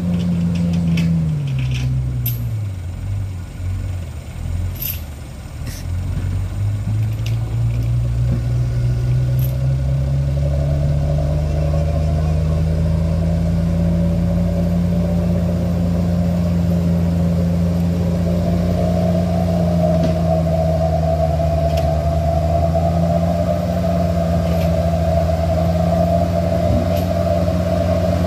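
Engine of a loaded light dump truck labouring up a muddy dirt slope. Engine speed drops sharply about a second in and stays low and quieter for a few seconds, then climbs steadily and holds high under load for the rest, with faint scattered clicks.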